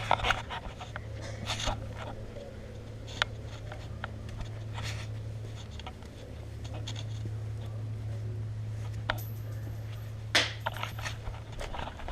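Scattered light clicks and scrapes over a steady low hum, with a sharper click about 3 s in and two more near the end.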